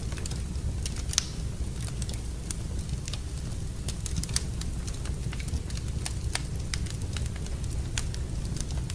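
Wood fire crackling in a fireplace: irregular sharp pops and snaps, one louder pop about a second in, over a steady low rumble.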